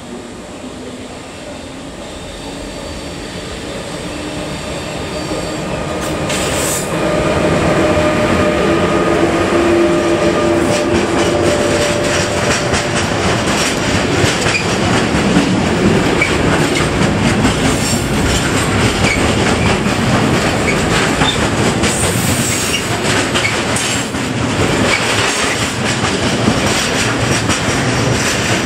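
Electric-hauled intermodal freight train approaching and passing close by, growing louder over the first several seconds as the locomotive arrives, with a steady hum while it goes by. Then a loud, steady rumble and clatter of wheels on rail as the container and lorry-trailer wagons roll past.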